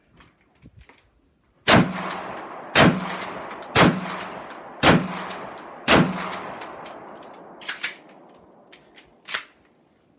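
Mossberg 12-gauge shotgun fired five times in quick succession, about one shot a second, each blast followed by a long echoing decay. A few lighter clicks follow after the shooting stops.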